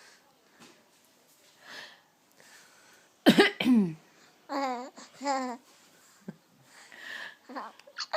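A person coughs about three seconds in, and a sleeping baby answers about a second later with two short laughs.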